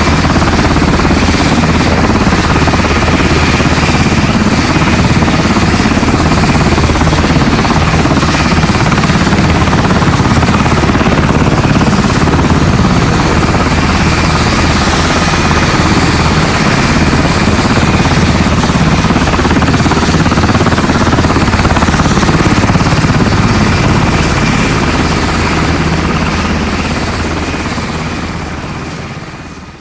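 Helicopter sound effect: steady rotor and engine noise, fading out over the last few seconds.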